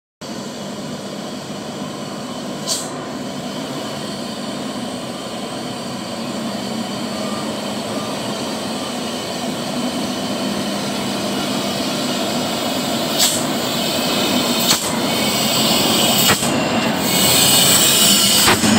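Hino dump truck's diesel engine running as the truck drives toward and past, growing steadily louder as it nears, with a few sharp clicks along the way. A rush of high hiss comes near the end as it draws alongside.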